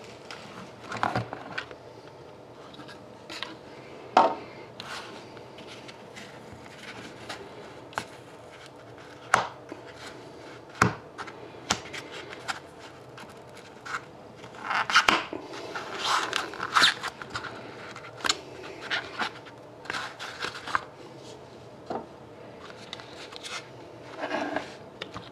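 Hands handling a small cardboard trading-card box: scattered scrapes, rubs and light taps as the lid is lifted off and a stack of cards is slid out, busiest a little past the middle.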